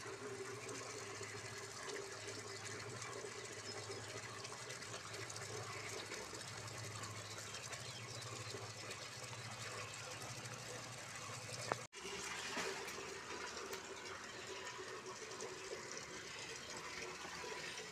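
Faint, steady background hiss with a low hum. The hum stops at a brief dropout about twelve seconds in, and the hiss continues after it.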